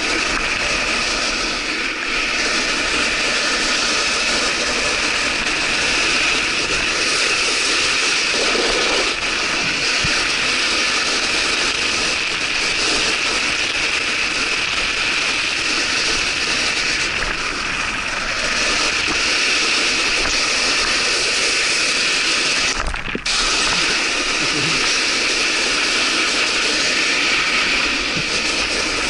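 Snowboard or skis sliding over icy, slushy spring snow while snowkiting: a steady, rough scraping hiss that briefly drops away about 23 seconds in.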